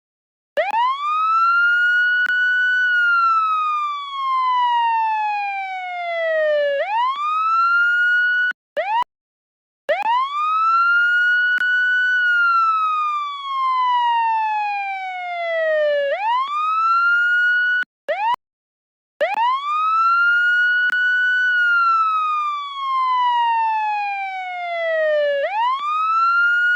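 Police siren wailing. Each cycle sweeps up quickly, holds a moment at the top, then falls slowly over about four seconds before sweeping up again. The tone cuts off abruptly into short silences a few times.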